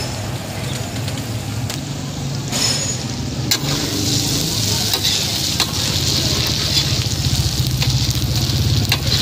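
Small minced-meat kebabs sizzling in oil on a large flat metal griddle (tawa), with a metal spatula scraping and tapping against the griddle as they are turned. The sizzle grows louder about a third of the way in, over a steady low hum.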